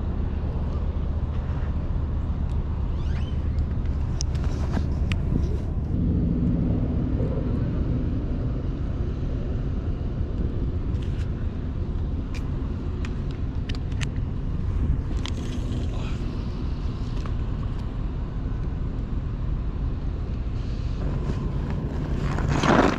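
A steady low engine rumble, with a few faint clicks over it.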